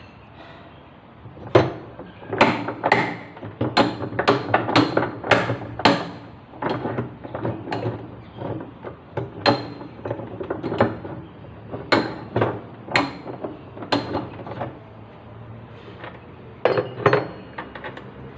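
An irregular run of sharp knocks and metallic clinks, like a hammer or tool striking metal parts. The blows come thick and fast in the first few seconds, then space out before stopping near the end.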